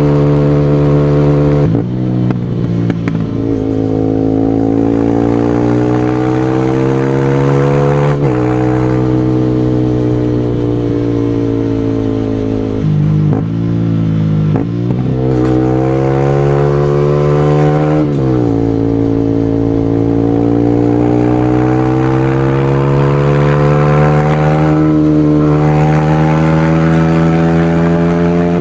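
Single-cylinder motorcycle engine being ridden. In each gear the note climbs slowly, and it drops sharply at each gear change, about five times, near 2, 8, 13, 14.5 and 18 seconds in, with a long climb after the last change.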